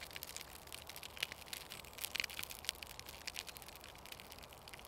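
Himalayan birch bark catching light on the embers of a campfire, crackling with many small irregular pops and a few sharper snaps.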